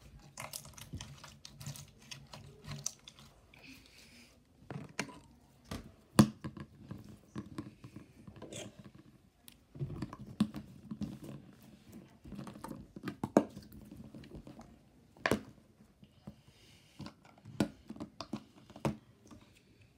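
Slime being squeezed and pressed by hand, giving irregular sticky clicks and pops, a few much sharper than the rest.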